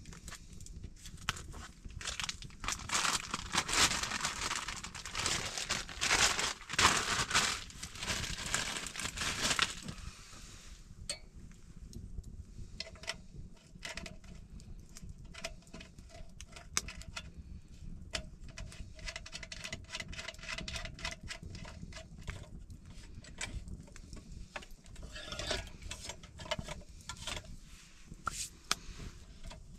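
Rustling and crinkling handling noise, loudest for several seconds near the start, then scattered sharp crackles and clicks, with a faint steady hum in the middle.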